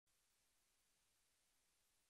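Near silence: only a faint steady hiss.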